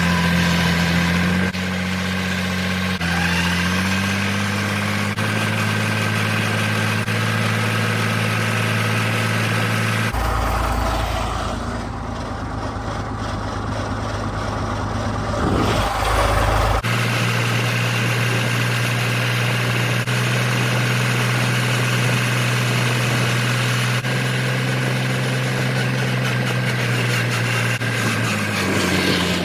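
A vehicle engine running steadily, its pitch shifting a little a few times. In the middle there is a stretch of deep low rumble lasting several seconds.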